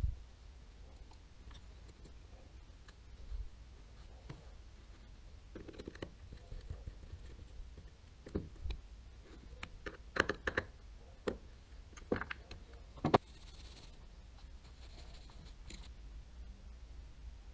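Small reel parts and tools clicking and tapping as a baitcasting reel is worked on by hand: scattered light clicks, with a cluster of sharper ones in the second half, then a brief soft hiss.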